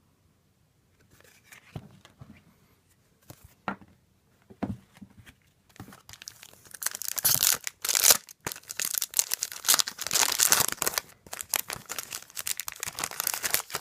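A foil trading card pack wrapper being handled and torn open, crinkling: a few scattered rustles and clicks at first, then dense tearing and crinkling from about halfway through.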